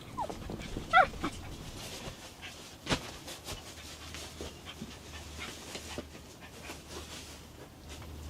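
A dog panting, with a short high whine about a second in, and a sharp click or knock near the middle.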